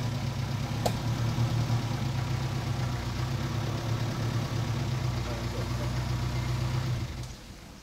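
A vehicle engine idling with a steady low hum, shutting off about seven seconds in.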